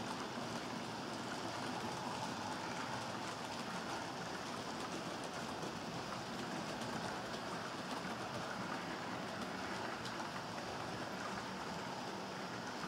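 HO-scale model freight train running along the track: a steady, even rolling noise of the small wagon wheels on the rails.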